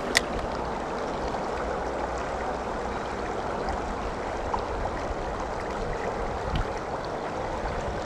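Shallow creek water rushing steadily over rocks, with one sharp click just after the start.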